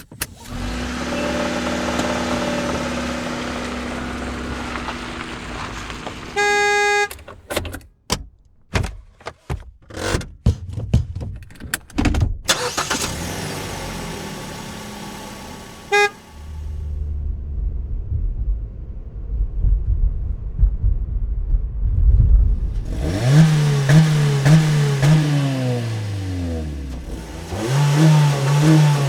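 A montage of car sounds: a car driving along, then a single horn blast about six seconds in, followed by a string of sharp interior clicks and knocks from door and cabin handling. Driving noise follows with a short horn toot, and near the end the engine is revved repeatedly, each rev rising and falling in pitch.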